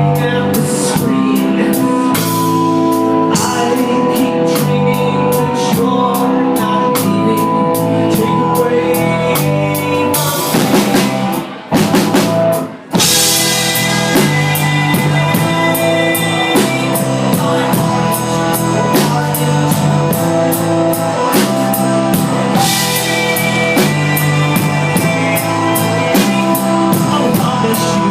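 Live rock band playing loud: drum kit, guitars and bass, picked up by a handheld iPod Touch's built-in microphone. About halfway through the band stops for a moment, then crashes back in.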